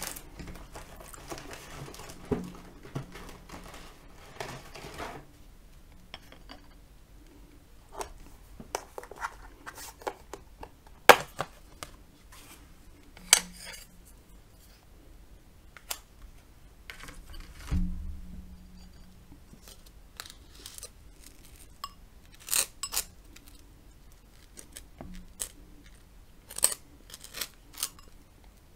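Close-up breakfast table sounds: soft chewing for the first few seconds, then scattered clicks and taps of crockery and utensils with one dull thump a little past halfway. Near the end, the scratchy scraping of a wooden knife spreading butter across crisp toast.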